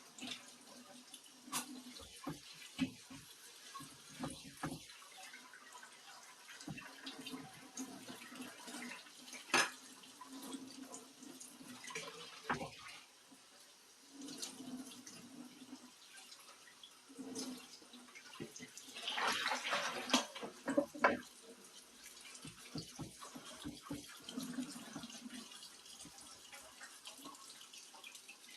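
Washing dishes at a kitchen sink: tap water running, with dishes clinking and knocking now and then. The water gets louder for a couple of seconds about two-thirds of the way through.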